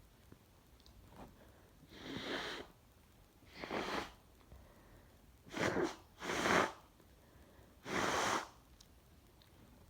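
A woman with a cold sneezing: five short, breathy bursts, the third and fourth close together.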